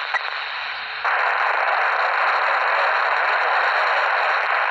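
Static hiss from a Uniden handheld scanner's speaker tuned to 29.62 MHz narrow-band FM, with no voice on the channel. There is a short click just after the start, and the hiss steps up louder about a second in.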